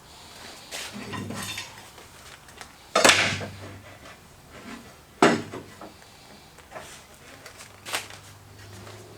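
Metal clanks and knocks from hardware being handled during carpentry work: two loud, sharp clanks about three and five seconds in, with lighter knocks and rattles between.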